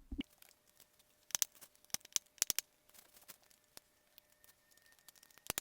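Sharp metallic clicks and scrapes of a tool working at a rusted motorcycle drive chain's master link, with a quick cluster of clicks about a second and a half in and another sharp pair near the end.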